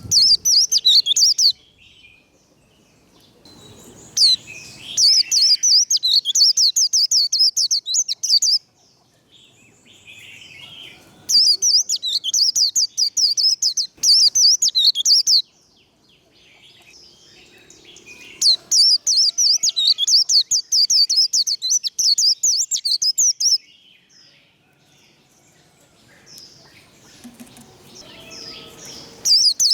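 White-eye (vành khuyên) singing its fast 'líu' song: long runs of rapid, high, chattering twitters, four strong bouts with short pauses between them, and soft quieter calls in the gaps.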